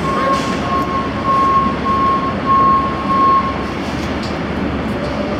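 Charter bus idling with a constant low noise, over which an electronic warning beeper pulses on and off at one pitch and stops about three and a half seconds in.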